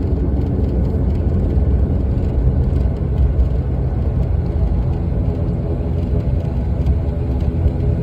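Airliner cabin noise during landing: a steady low rumble from the engines and airframe, heard from inside the cabin.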